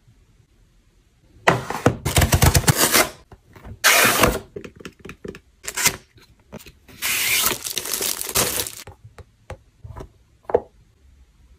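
A cardboard product box and its packaging being opened and handled: several loud bursts of crinkling and tearing in the first nine seconds, then a few light clicks and taps.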